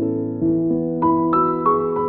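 Soft piano background music, a slow melody of sustained notes over low held chords.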